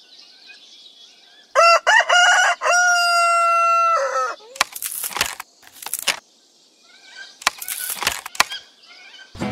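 A rooster crowing once: a few short notes, then one long held note that falls away at the end. Several short rustling noises follow.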